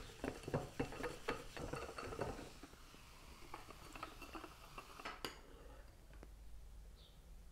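Small whisk clicking and scraping rapidly against a glass tumbler as Coke is whisked thick with thickener powder, for about the first two and a half seconds. Then only a few light ticks and a single sharp clink about five seconds in.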